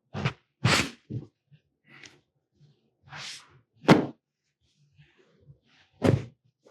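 Handling noise from setting a patient up in chiropractic traction equipment: several dull thunks and a couple of swishing rustles, the sharpest thunk about four seconds in.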